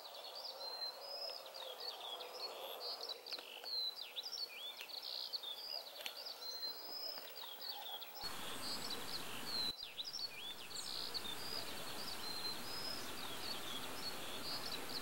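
Many small songbirds chirping and singing, short whistles and trills overlapping, over a soft outdoor hiss that grows fuller about eight seconds in.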